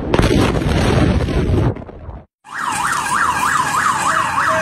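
A sudden loud rush of noise as the explosion's blast wave hits, lasting about a second and a half before it fades and cuts off. Then an emergency vehicle's siren wails in quick yelps, about three rises a second.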